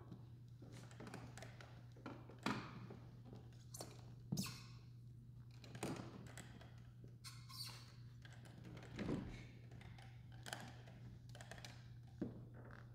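Quiet pause in a recital hall: a steady low hum, with scattered light knocks, taps and shuffles, about half a dozen louder ones, as the pianist settles onto the piano bench and arranges his music.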